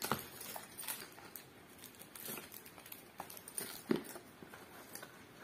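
Glass bangles clicking against one another as they are handled: a scattering of light, sharp taps, the loudest about four seconds in.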